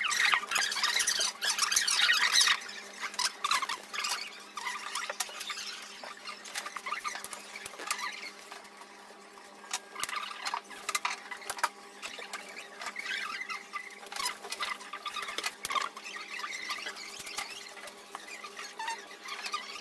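Irregular small clicks, scrapes and rustles of a plaster dental cast and plastic bottles being handled, busiest in the first couple of seconds, over a faint steady hum.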